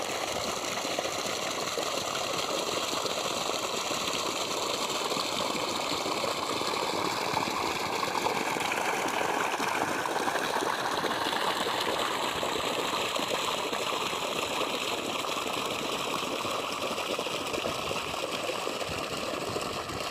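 Irrigation water gushing steadily from a pipe outlet into a muddy field channel, a continuous even rush.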